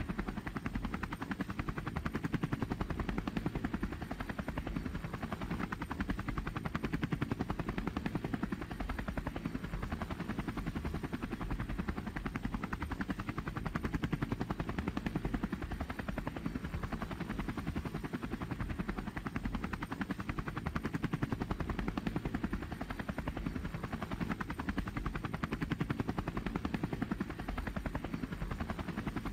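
Quadcopter drone's propellers running steadily, a dense, rapid pulsing with no change through the flight.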